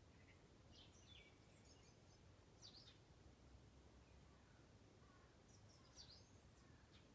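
Faint songbirds singing: a few short, high chirping phrases about a second in, near the middle and near the end, over a low, steady background rumble.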